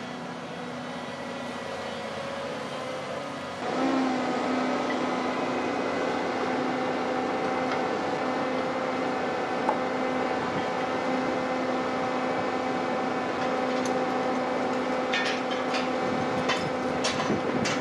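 Heavy construction machinery running with a steady hum that gets louder about four seconds in, with a few sharp metallic clicks near the end.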